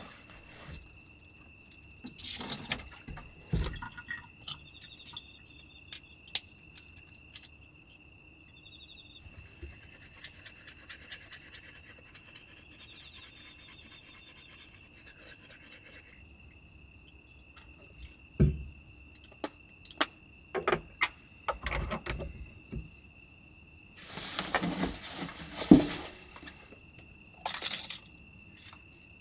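Teeth being brushed, a soft scratchy scrubbing for several seconds in the middle, followed by clicks and knocks of small objects being handled and a burst of rustling near the end. A steady high-pitched cricket trill runs underneath throughout.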